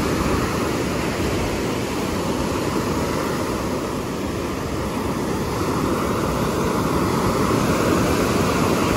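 Ocean surf breaking and washing up a sand beach: a steady rush of water that swells a little about six to eight seconds in.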